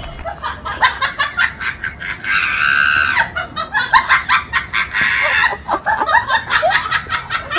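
A person laughing hard in a rapid, high-pitched cackle that runs on and off.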